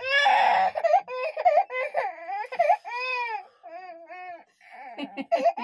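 Baby crying in repeated high-pitched wails, loudest and harshest in the first second, then shorter falling cries with a brief lull before it starts up again near the end: crying after a small fall.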